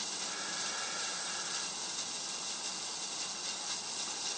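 Steady high hiss with no distinct event, with a faint thin tone near the start lasting about a second.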